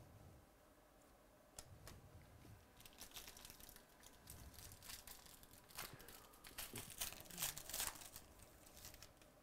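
A foil trading-card pack wrapper being torn open and crinkled by hand, in irregular crackling bursts that start about one and a half seconds in.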